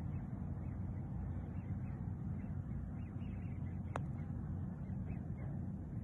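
A single sharp click about four seconds in as a golf club strikes the ball on a short shot around the green, over a steady low rumble.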